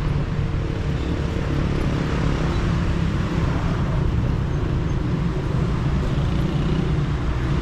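City street ambience: a steady low hum of road traffic.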